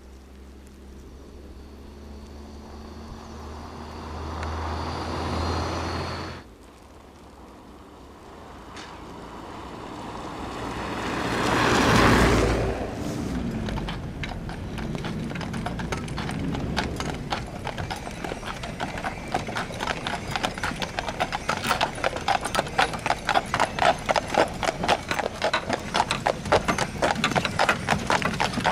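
A low engine hum cuts off suddenly about six seconds in, then a vehicle drives past, loudest around twelve seconds in. From about sixteen seconds a horse's hooves clip-clop steadily on a snow-covered road, growing louder toward the end as the horse-drawn wagon comes close.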